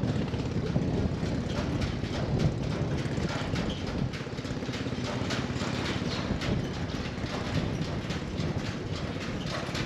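Wind rumbling on the microphone, with a scatter of short clicks and knocks throughout.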